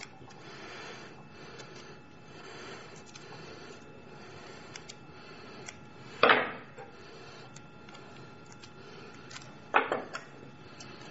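Adhesive tape being handled and cut to size for a videocassette reel: a few sharp clicks, the loudest about six seconds in and two close together near the end, over a steady low hiss.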